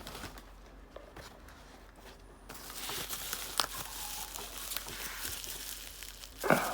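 Parcel packaging being handled, rustling and crinkling with scattered small clicks. It starts about two and a half seconds in after a quieter start. A short, louder sound comes near the end.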